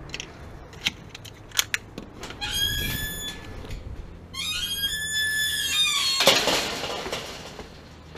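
A few sharp clicks, then two long, wavering high squeals from a metal gate's hinges as it swings, followed by a louder clatter.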